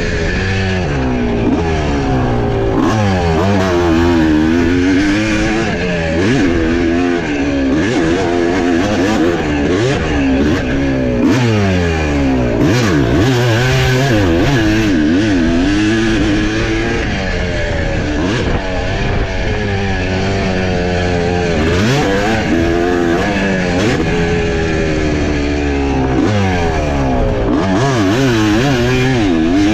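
Motocross dirt bike engine being ridden hard, its pitch climbing and dropping over and over with throttle, gear changes and throttle chops, heard from on board the bike.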